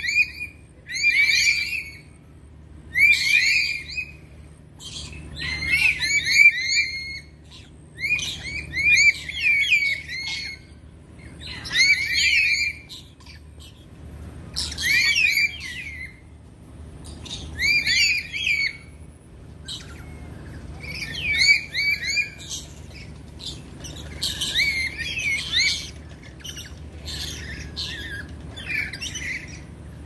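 A group of lories calling: bursts of shrill, squawking chirps with quick rising and falling notes, one burst every two to three seconds, the last few weaker.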